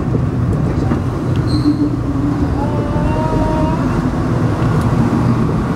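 Alstom NS-16 metro train running, heard from inside the driver's cab: a steady rumble, with faint whining tones around the middle.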